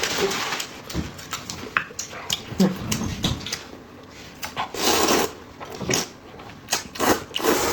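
Close-miked eating sounds: chewing with wet smacks and clicks, and a slurp of sauce-coated zhajiang noodles about five seconds in.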